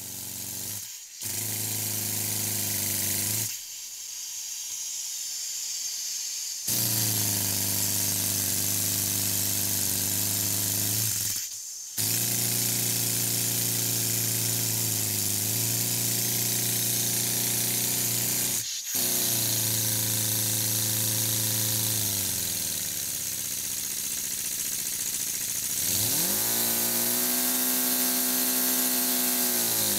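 Scratch-built two-cylinder miniature steam engine for a G-scale Climax locomotive, running fast on test: a steady buzzing hum over a constant hiss. The hum stops a few times, once for about three seconds with only the hiss going on. Near the end it speeds up and then slows down again.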